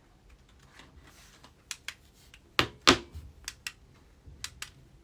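A scattered run of sharp clicks and taps from the buttons of a wireless-charging alarm clock speaker being pressed, two louder clicks close together about two and a half seconds in.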